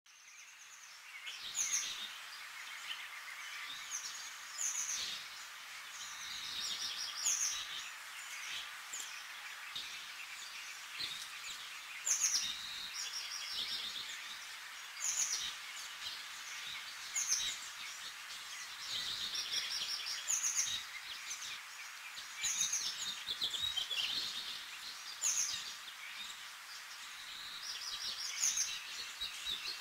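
Birdsong: many short, high chirps and trills repeating every second or two over a steady background hiss, starting suddenly.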